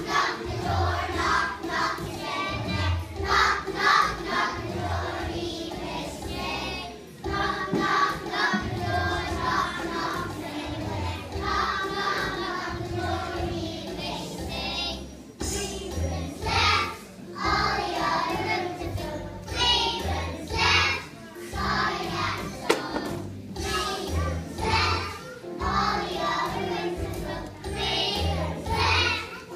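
A group of young children singing a song together over musical accompaniment with a steady low beat.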